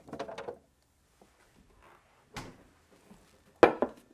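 Kitchen handling sounds as a lidded glass salad bowl is taken from the refrigerator: a short rattle at the start, a softer knock a couple of seconds in, then a sharp double knock near the end as the bowl is set down.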